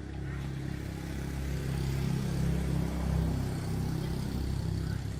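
A motor running with a low, steady hum that grows louder over the first couple of seconds and then holds.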